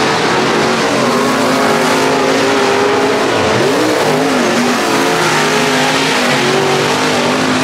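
Dirt super late model race car's V8 engine running hard on track. Its pitch dips sharply about three and a half seconds in as the throttle is lifted, then climbs back and holds high.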